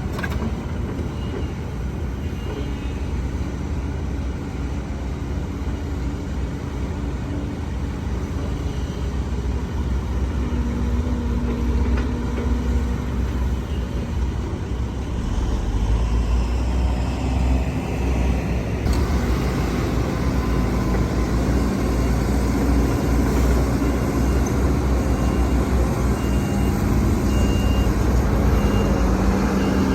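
Heavy diesel engines of an excavator and dump trucks running steadily, getting louder about halfway through. Near the end a truck's reversing alarm beeps about once a second.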